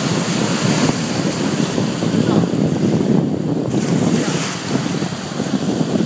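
Ocean surf breaking and washing up the beach, with wind buffeting the microphone in an irregular low rumble.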